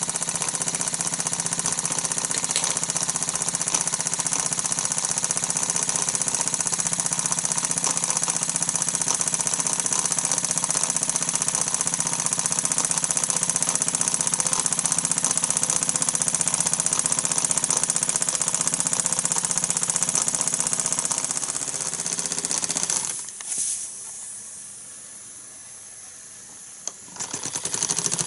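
Meccano toy steam engine running at speed, a steady fast rhythmic beat from its cylinder and flywheel. The sound drops away sharply for a few seconds near the end, then returns.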